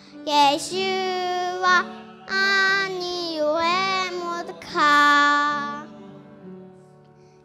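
A five-year-old girl singing a worship song into a microphone over a soft musical accompaniment, in three phrases, the last a long held note. After about six seconds her voice stops and only the accompaniment carries on, fading.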